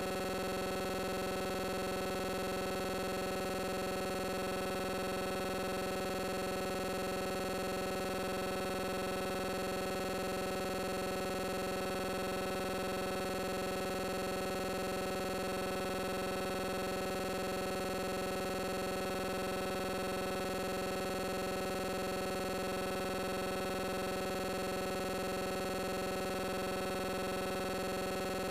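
A steady electronic drone of several held tones that never change in pitch or loudness.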